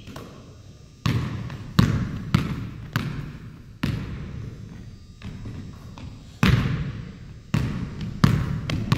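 Basketball bouncing on a wooden gym floor as it is dribbled, each bounce a sharp thud with a short echo. There are about five bounces in the first four seconds, a pause of about two seconds, then four more near the end.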